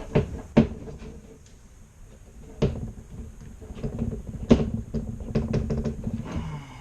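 Knocks and clicks of fuel pump parts being handled and pushed together: a few separate sharp knocks, then a quick run of small clicks near the end.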